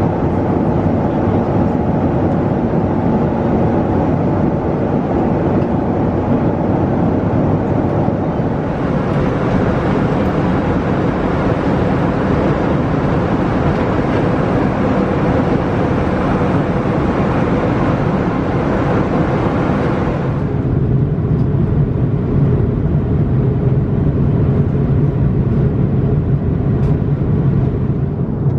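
Steady in-flight cabin noise of an Airbus A340-600 at cruise: a loud, even rush of air and engine drone. It turns brighter about a third of the way in and duller, with a stronger low hum, about two-thirds of the way.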